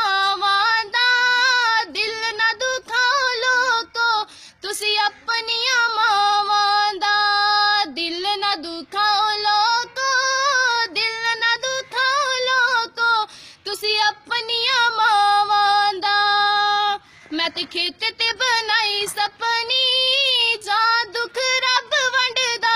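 A girl singing solo and unaccompanied, a Punjabi song, in long held notes that waver and slide, broken by short pauses for breath.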